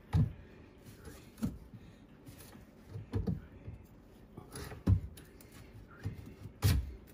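Short clicks and knocks of a copper slip coupling being handled and slid along a cut copper water pipe, about five separate taps spread over several seconds.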